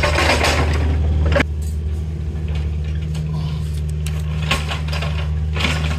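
An engine running steadily at low revs, with louder clattering noise on top for the first second and a half that stops abruptly.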